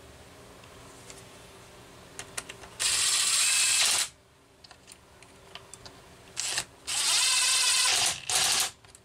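Cordless drill driving screws into a Homelite 330 chainsaw's housing: one run of about a second, then a short blip and two more runs near the end, each with a steady whine, after a few light handling clicks.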